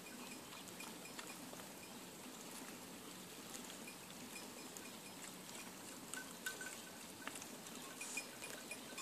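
Piglets grazing: faint tearing and chewing of grass with scattered small clicks over a steady hiss, and faint short high chirps now and then.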